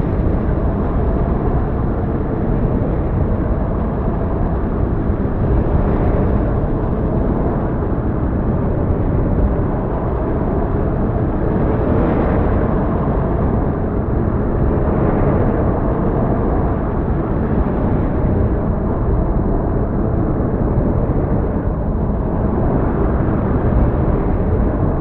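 Heavy storm ambience: a steady, dense, low-pitched roar with slight swells now and then.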